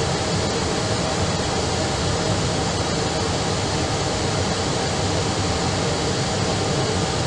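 Steady cabin noise of an Airbus airliner taxiing: an even rumble and hiss from the engines and air conditioning.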